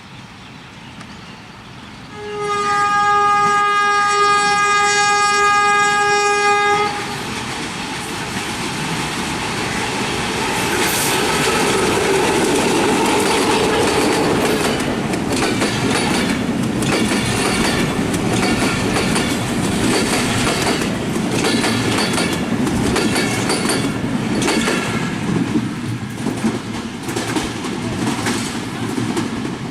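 Diesel locomotive's horn sounding one long steady blast of about four and a half seconds. The train then passes close by: a rising rumble, and then wheels clattering over the rail joints.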